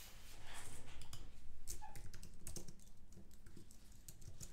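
Typing on a computer keyboard: a run of irregular key clicks, a little louder in the first half.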